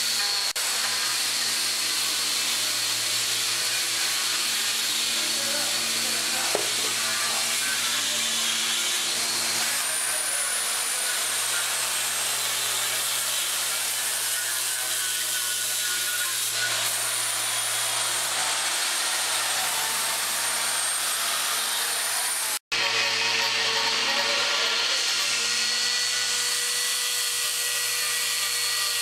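Handheld electric wood-carving power tools running steadily as they grind and sand into wood: a high motor whine over a continuous grinding noise. The pitch of the whine shifts a few times, and about three-quarters through the sound drops out for an instant and returns with a different whine.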